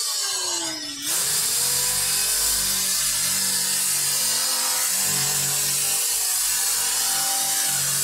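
Electric drill with a wire brush scrubbing rust off the sheet-metal edge of a washing machine cabinet. Near the start the drill slows, its motor pitch falling, then it starts up again about a second in and keeps brushing steadily.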